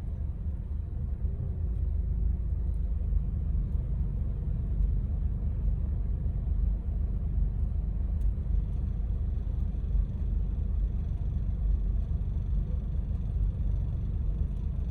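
2002 Honda CR-V engine running, a steady low rumble.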